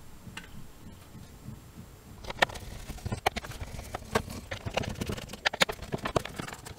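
A hand screwdriver works the screws out of a small plastic 3D-printer control box. From about two seconds in there are many sharp, irregular clicks and taps of metal on plastic.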